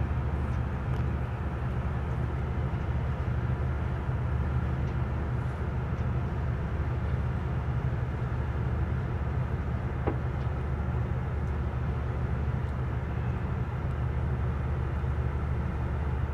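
Steady low drone of a diesel engine running, heard from inside a truck cab, with a faint click about ten seconds in.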